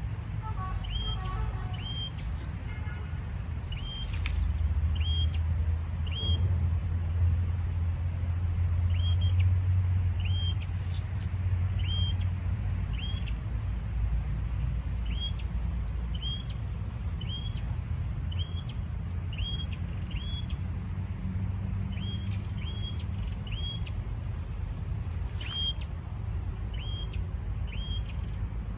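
A small bird repeating short, sharp call notes about once a second, over a high buzzing insect trill and a low rumble that swells for several seconds early on.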